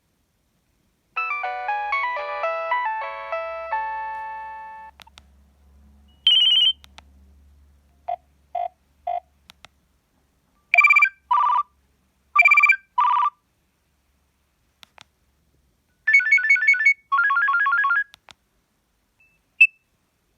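Nokia 3120 mobile phone playing a run of its preloaded ringtones and alert tones through its loudspeaker. A polyphonic melody of about four seconds is followed by several short snippets: a brief tone, three quick beeps, two pairs of two-note rings, a fast trill of repeated notes and a single blip near the end, with short clicks between them.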